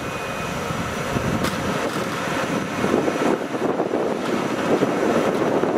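EF65 2000-series electric locomotive standing with its onboard machinery running: a steady rushing noise that grows louder about three seconds in.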